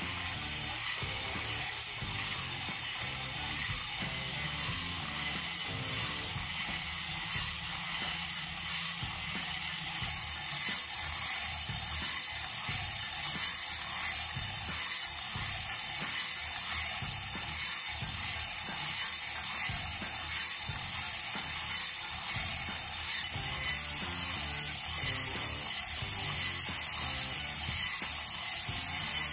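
Full-metal TECHING V8 engine model running on its electric motor: a steady, fast metallic clatter and whir from its timing chains, sprockets, camshafts and valve gear. It grows a little louder about a third of the way in.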